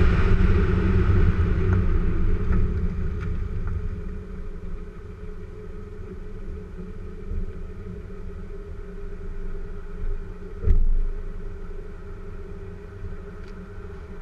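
VW Golf VR6 Syncro's 2.9-litre VR6 engine running with an open air filter, loud at first and then settling to a quieter, steady sound over the first few seconds. There is a single sharp thump near the end.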